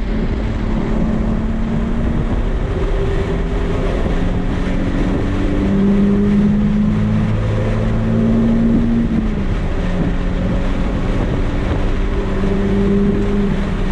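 Nissan 370Z's V6 engine running hard on a race track, its note holding steady pitches that shift up and down several times, with wind and road rush underneath.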